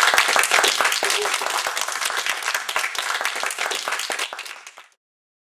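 A group of schoolchildren clapping and applauding, fading out near the end.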